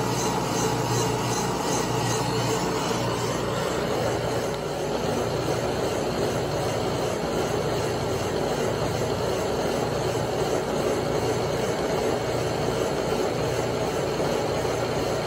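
Milling machine spindle running steadily, turning a Wohlhaupter UPA3 boring and facing head as it takes a light boring cut, about 9 thousandths per side, through a lathe drive plate's bore.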